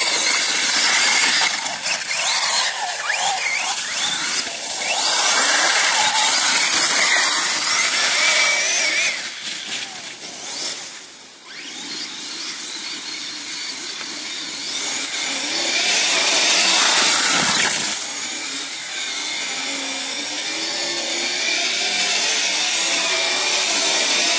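Radio-controlled off-road buggy driving on snow, its small motor running with a high, sliding whine as the throttle goes up and down. It fades sharply as the buggy drives away about halfway through, then grows loud again as it comes back.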